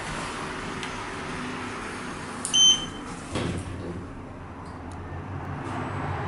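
Schindler 5300 traction elevator car: a short, high electronic beep about two and a half seconds in, such as a button acknowledging a press. About a second later there is a knock with a low rumble as the doors shut, then a low steady hum as the car starts to move.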